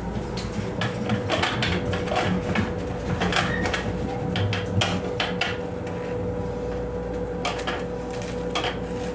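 Irregular clattering and knocking of loose fittings inside an MTA Metro-North M7 rail car's restroom as the train runs. Underneath is a low rumble with a faint steady tone.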